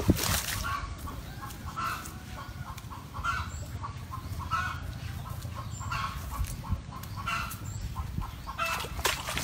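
Free-range chickens clucking, short calls scattered throughout.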